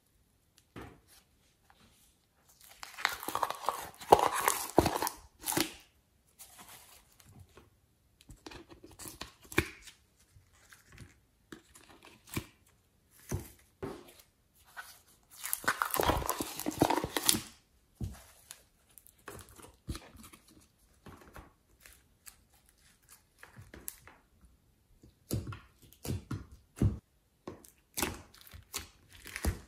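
Hands working slime-making materials: two spells of loud crackly tearing and crinkling, a few seconds in and about halfway through, with light clicks and crinkles between.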